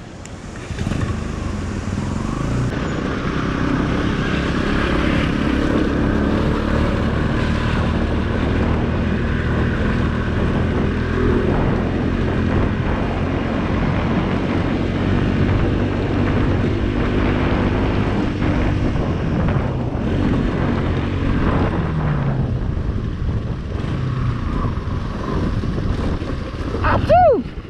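Bajaj Pulsar NS200's single-cylinder engine running steadily under way, mixed with wind and tyre noise on a rough gravel road. The revs fall briefly about three-quarters of the way through.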